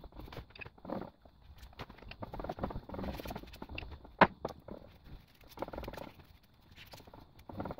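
A paintbrush swishing as it spreads finish over a wooden desk lid, with scattered light taps and knocks. The loudest sound is a single sharp click about four seconds in.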